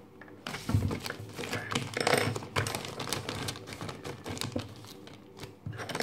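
Paper rustling and crinkling with irregular small clicks and taps as papers and colour pencils are handled on a table.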